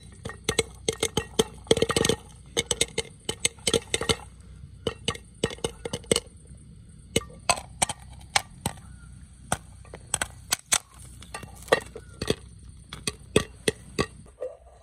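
Popcorn popping in a camping pot covered with an upturned frying pan on a gas-canister stove: a quick, irregular run of sharp pops, densest about two seconds in and going on unevenly throughout, over a faint steady hiss.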